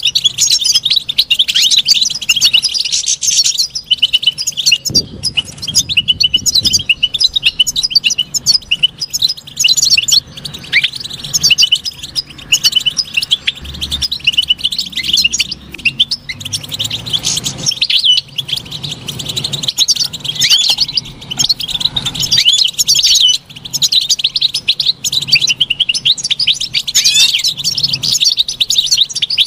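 European goldfinch twittering song: a fast, unbroken stream of high chirps, trills and short sliding notes.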